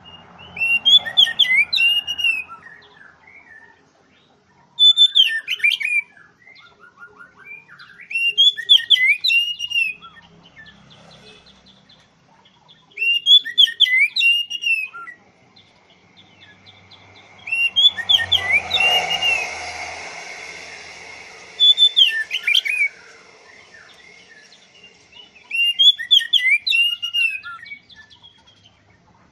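Oriental magpie-robin (kacer) singing in repeated loud phrases of rising and falling whistled notes, each one to two seconds long, about every four seconds. A broader background noise swells briefly about two-thirds of the way through.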